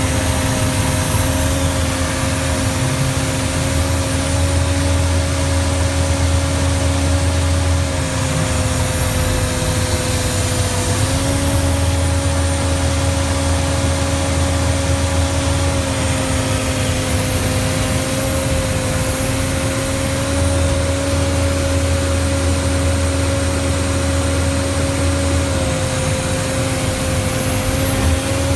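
PistenBully Scout tracked snow vehicle running steadily as it ploughs through deep snow. There is a steady whine that shifts slightly in pitch a few times, over a deep rumble that swells and eases.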